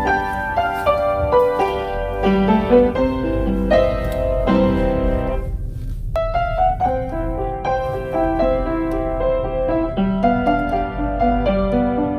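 Background music: a solo piano playing a gentle melody over chords. It thins out for a moment about halfway through, then goes on.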